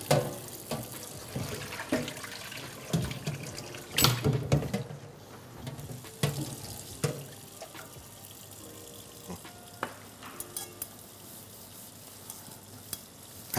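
Kitchen tap running into a stainless-steel sink, with a few knocks and clanks of metal cookware. The loudest knock comes about four seconds in.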